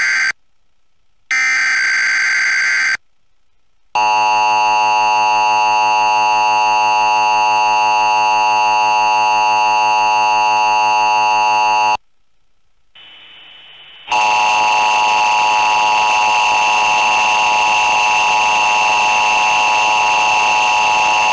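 Emergency Alert System test tones, heavily distorted. A digital header data burst ends just after the start and, after about a second of silence, a second data burst follows. A second later comes the attention signal, a steady buzzing multi-tone held for about eight seconds, and after a short gap another steady, distorted tone begins and holds.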